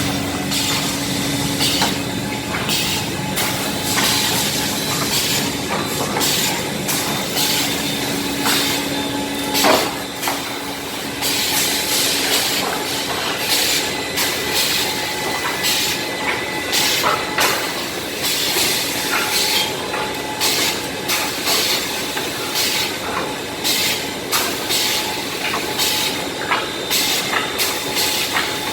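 Wood defect-cutting cross-cut saw at work: a steady hum that stops about a third of the way through, and repeated short bursts of hiss and clatter as the saw cycles through its cuts.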